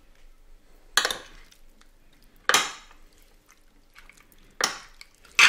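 Metal fork clinking against a glass baking dish while tossing squid rings in oil and crushed green peppercorns: four sharp clinks, the last near the end the loudest.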